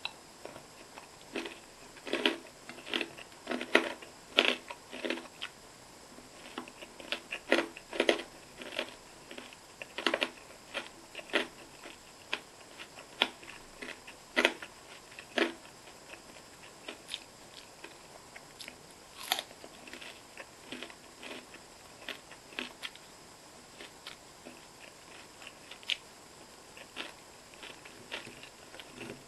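Close-miked eating sounds: irregular crunchy bites and chewing, thickest in the first half and sparser toward the end.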